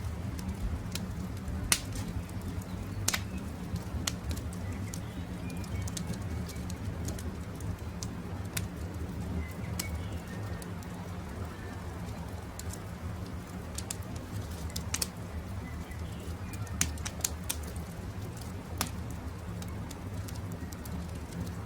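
Campfire crackling, with scattered sharp pops over a steady low rumble, and a few short bird chirps here and there.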